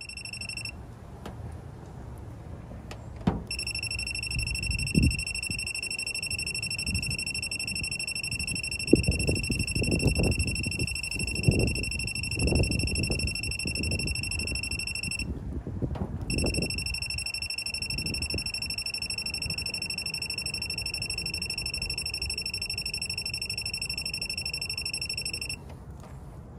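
1380 W magnetic induction paintless dent repair heater emitting a steady high-pitched electronic tone while switched on against the car panel. It sounds briefly at the start, comes back a few seconds in, drops out for about a second midway and stops just before the end. Low rumbling noise underneath is loudest in the middle.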